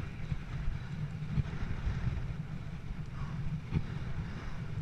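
Wind blowing across the microphone: a steady low rumble that flutters in level.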